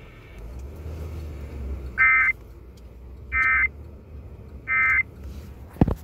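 Emergency Alert System end-of-message data signal heard over FM radio: three identical short bursts of high-pitched warbling digital tones, about 1.3 seconds apart, marking the end of the alert. A low hum runs under them, and a short low thump comes near the end.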